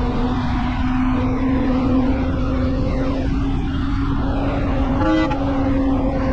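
Vehicle driving on the road: a steady engine and road drone with a constant hum, and a brief higher tone about five seconds in.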